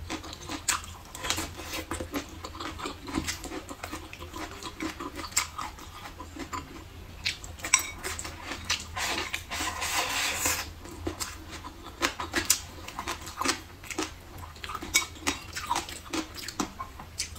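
Close-miked eating: wet chewing and lip smacking on blistered green peppers, rice and braised pork ribs, with many short clicks of wooden chopsticks against a ceramic bowl. A louder noisy stretch lasts about a second and a half around the middle.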